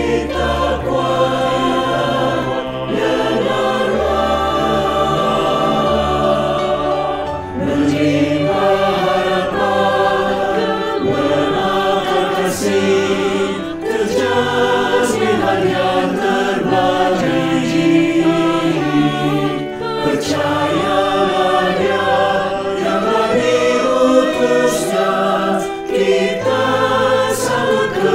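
Mixed church choir of men's and women's voices singing a hymn in harmony, with piano accompaniment.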